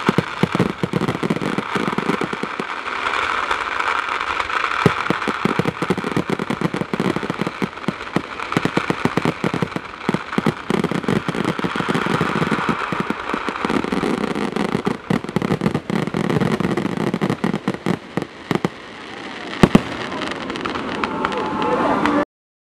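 Fireworks going off: a dense, rapid crackle of firecrackers with a few louder bangs, two of the loudest close together late on, stopping abruptly just before the end.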